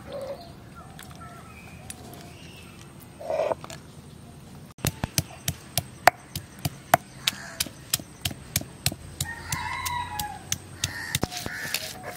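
A stone pestle knocking down onto a flat grinding stone about three times a second, crushing shallots; the knocking starts about five seconds in. Chickens call in the background.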